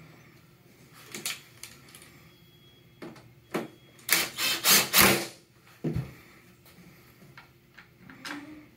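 Cordless drill driving a screw back into the bottom of an EsyBox pump's plastic front panel: a loud burst of about a second, in four or so pulses, about four seconds in. Scattered clicks and knocks of handling the screws and tools come before and after.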